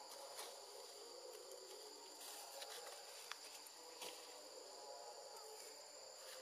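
Faint, steady high-pitched insect buzzing, with a few soft clicks scattered through it.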